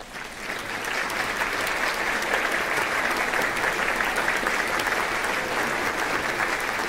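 Audience applauding in a theatre. A few scattered claps swell within about a second into steady, dense clapping.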